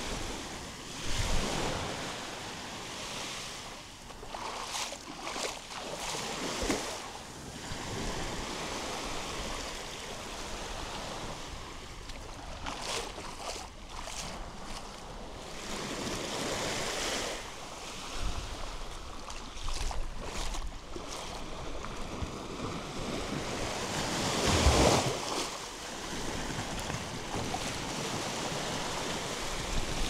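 Sea waves breaking and washing ashore in irregular swells, with louder surges about a second in and again near 25 seconds. Wind buffets the microphone with a low rumble.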